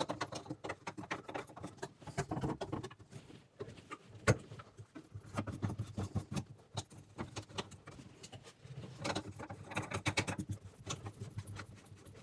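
Plastic sink drain fittings being handled and a slip nut turned by hand onto the tailpiece: irregular scraping, rubbing and clicking of plastic, with one sharper click about four seconds in.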